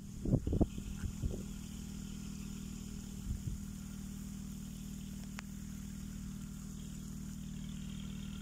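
An engine running at a steady idle, a constant low hum, with a few dull thumps in the first second and a half.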